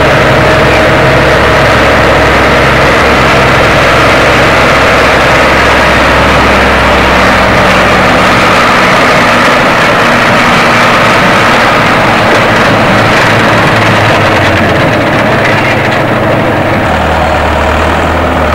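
Farm tractor's diesel engine running steadily close by as the tractor drives across a field; the deepest part of the drone fades about halfway through and comes back near the end.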